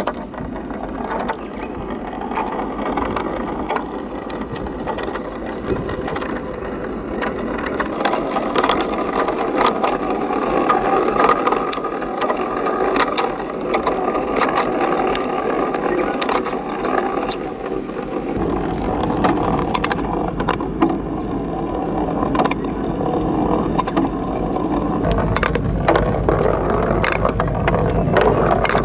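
A ball rolling along plastic rain-gutter channels: a continuous rattling rumble full of small clicks as it runs down the track.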